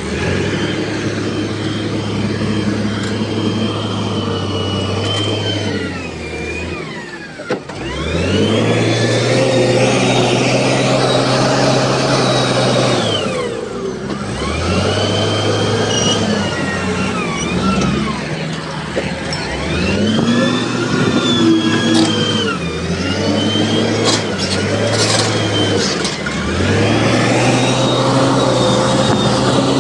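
Heavy diesel earthmoving machine's engine revving up and settling again and again as it works, about six rises in all, with a high whine that rises and falls along with the engine.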